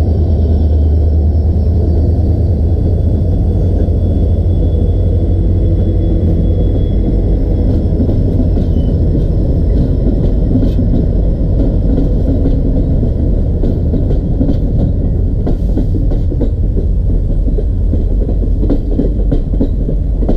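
Diesel locomotives of an Indian Railways train passing close by, a loud, steady, deep engine rumble. Toward the end the rumble eases and the clicking of wheels over rail joints comes forward as the coaches roll past.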